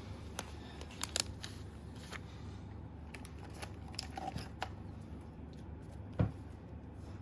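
Pokémon trading cards being handled and flipped through, giving a few scattered light clicks and snaps over a low steady hum. The loudest snap comes about six seconds in.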